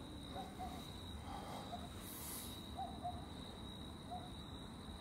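Short hooting animal calls, several in quick pairs, repeated a few times over a steady high-pitched insect-like tone and a low rumbling background.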